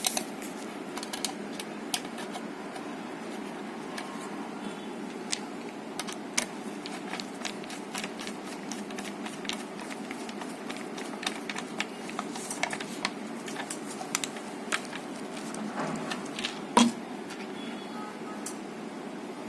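Scattered small clicks and taps of a screwdriver driving screws into a plastic light housing, with one louder knock near the end, over a steady background hiss.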